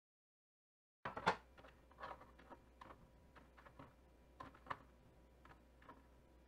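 Dead silence for the first second, then a series of light, irregular clicks and knocks from hands handling kitchenware on a table, the sharpest just after the silence ends.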